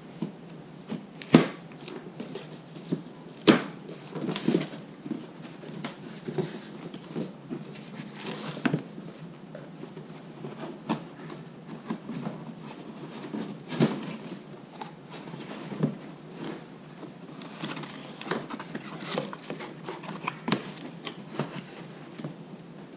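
A cardboard box and its packing material being handled and opened to unpack a new radiator: rustling and scraping with scattered sharp knocks and clunks, the loudest about a second and a half in, about three and a half seconds in, and near the middle.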